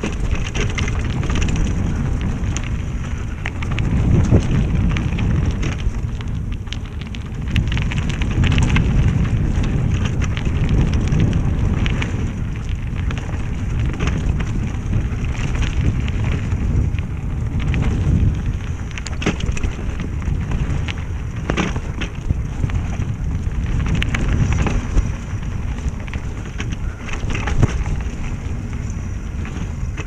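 Mountain bike riding down a dirt and rock trail: tyres crunching over the ground and the bike rattling, with frequent sharp knocks, over a steady low rumble of wind on the camera's microphone.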